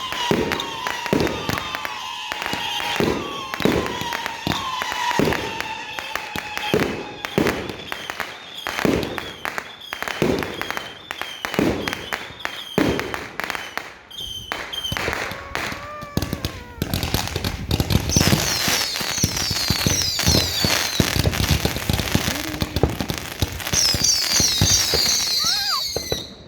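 Fireworks going off in quick succession: a string of sharp bangs about one or two a second, over steady whistling tones. From about 18 seconds in comes a dense, louder barrage with many falling whistles and crackling.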